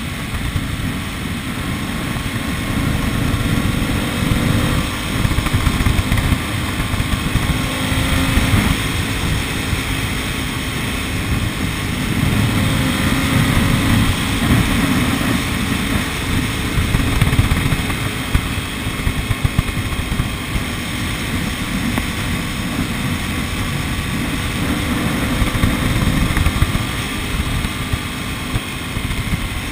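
A vehicle driving along a highway: steady rumble of road and engine noise, with faint engine tones drifting slowly up and down in pitch.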